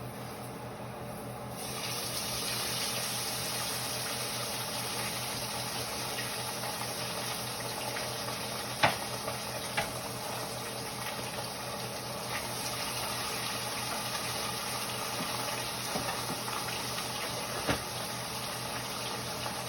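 Water running steadily from a kitchen tap, turned on about two seconds in, with a few sharp knocks and clinks over it.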